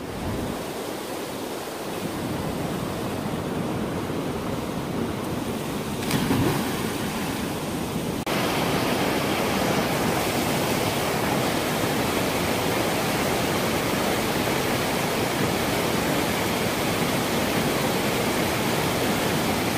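Creek water rushing through a narrow granite channel: a steady hiss of small rapids, which steps up to louder about eight seconds in.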